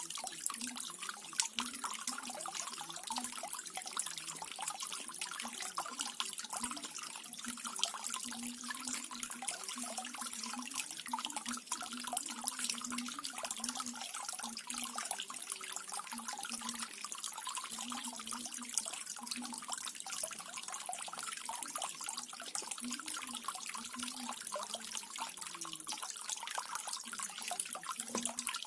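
Water from a small garden waterfall splashing and trickling steadily.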